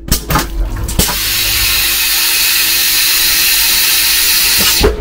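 Water spraying under pressure from a passenger railway car's water fitting: a few clicks, then a loud steady hiss that starts about a second in and cuts off just before the end. The nozzles are dirty and the water comes through poorly.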